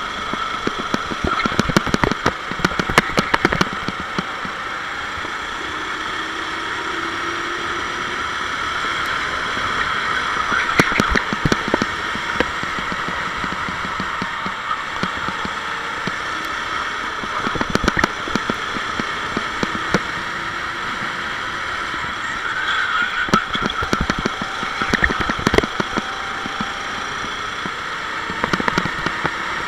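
Onboard sound of a Sodi SR4 rental kart's engine running at racing pace, a steady high drone that wavers slightly in pitch through the corners. Sharp knocks break through in clusters, mostly near the start and near the end.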